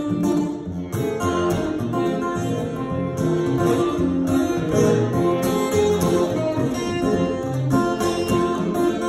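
Live guitar music: a continuous run of plucked guitar notes.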